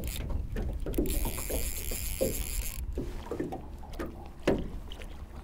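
Irregular knocks and rubbing of fishing gear being handled, with one louder thump about four and a half seconds in, over a steady low rumble.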